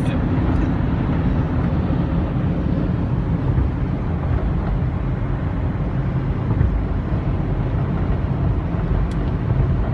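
Steady road noise inside a moving car: an even, low rumble of tyres and engine at highway speed.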